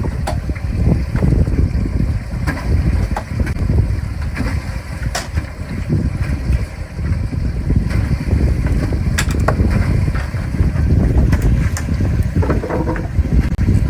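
Wind buffeting the microphone aboard a boat at sea, a heavy gusting rumble, with a few sharp knocks.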